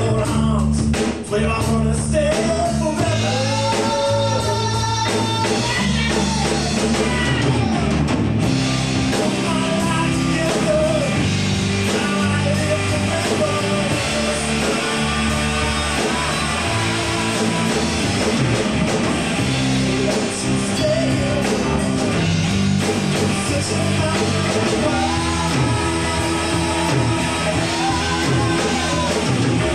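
Live rock band playing: electric guitar, bass guitar and drum kit, with a man singing into a microphone during parts of the passage.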